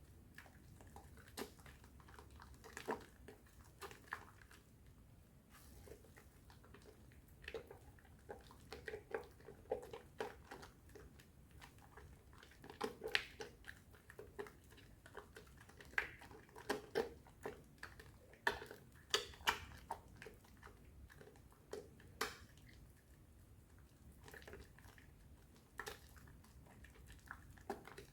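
A bar of soap being lathered by hand in thick foam mixed with powder: irregular wet squishes and sharp little clicks. They come sparsely at first, then in dense clusters through the middle.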